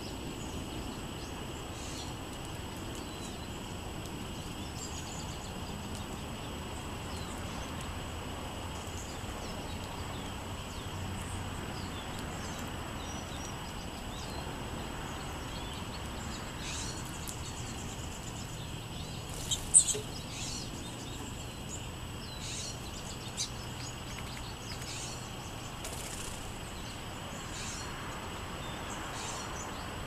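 Short, high chirps from small songbirds scattered over a steady outdoor background hiss, coming more often in the second half, with one sharper, louder sound about two-thirds of the way through.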